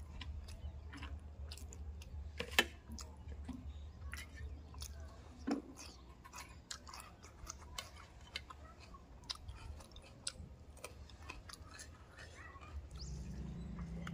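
Close-up mouth sounds of a person eating fish curry and rice by hand: chewing and smacking with many small wet clicks, and one sharper click about two and a half seconds in, over a steady low hum. A low drone comes in near the end.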